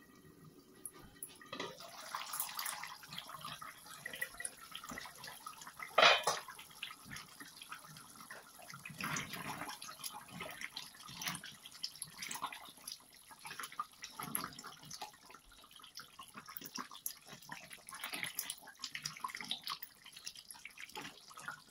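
Chicken curry simmering in a wide steel pan, the gravy bubbling and crackling while a spatula stirs and scrapes through it; this is the chicken being cooked down in its water for a bhuna. One loud metallic clank comes about six seconds in, as the pan's steel lid comes off.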